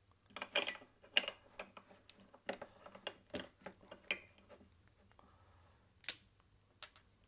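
Small irregular clicks and ticks of a screwdriver turning Torx screws and shifting small metal parts in an opened hard disk's aluminium case, with one sharper, louder click just after six seconds.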